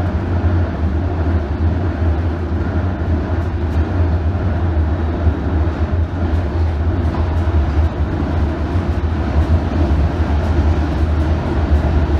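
Steady rumble of a London Underground S7 Stock train heard from inside the carriage while it runs along the track, with a strong low hum under the wheel and track noise.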